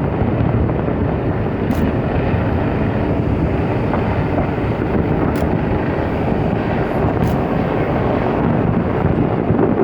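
Continuous low rumble of a fireworks display, with a few faint sharp cracks.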